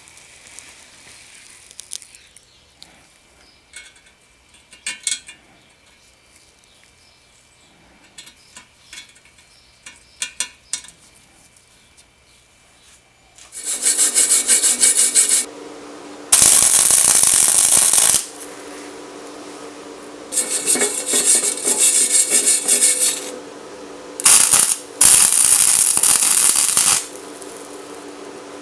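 Faint clinks of parts and tools being handled, then, from about halfway, a power tool running in five loud bursts of one to three seconds each, with a steady hum between them.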